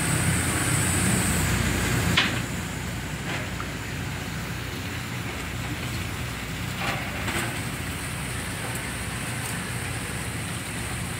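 Steady low hum of running machinery, with a sharp click about two seconds in and two fainter clicks around seven seconds.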